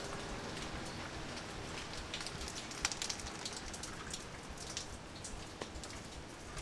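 Rain falling on wet paving and foliage: a steady patter with sharp drops tapping here and there, one louder drop about three seconds in.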